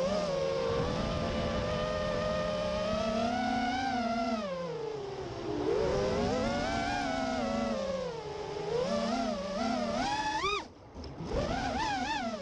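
FPV freestyle quadcopter's motors whining, the pitch sliding up and down with the throttle. Near the end the throttle drops off briefly, then comes back in several quick punches.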